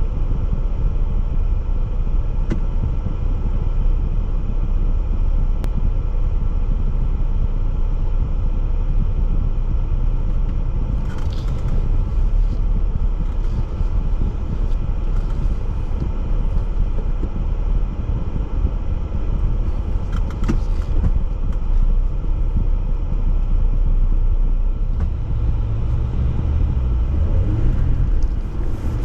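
A Jeep driving off-road: a steady, loud low rumble of engine and tyres, with a few clicks and knocks. Near the end the engine pitch rises and falls.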